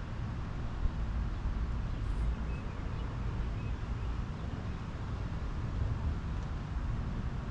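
Steady low rumble of outdoor background noise, with a single faint tick about a second in.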